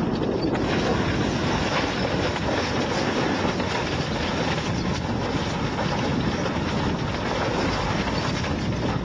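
A heavy vehicle's engine running steadily, with wind buffeting the microphone.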